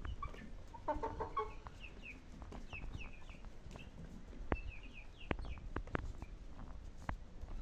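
Chickens clucking, with one louder pitched call about a second in, over a scatter of short, high chirps. A few sharp taps come in the second half.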